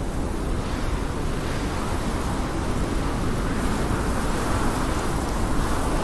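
Blizzard wind blowing steadily with the rush of wind-driven snow, swelling a little about a second and a half in.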